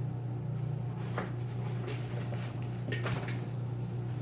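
Short knocks and scrapes of a folding tabletop photo light box's panels being handled and folded, a few times, over a steady low hum.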